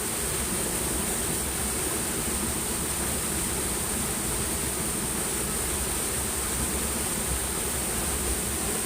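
Steady rush of flowing river water, even and unbroken, with a steady high-pitched hiss above it.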